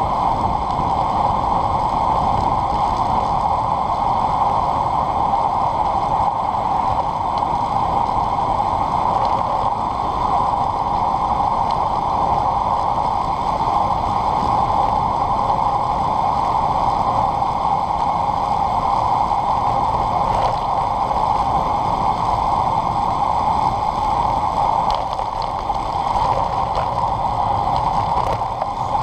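Steady rush of wind buffeting a handlebar-mounted camera's microphone, mixed with tyre noise on tarmac, as a road bike coasts downhill at about 40 km/h. The rush eases slightly near the end as the speed drops.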